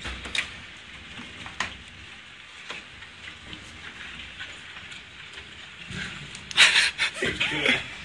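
Windstorm heard through a window: a steady hiss with a few sharp ticks against the glass, and a louder burst of noise for about a second near the end.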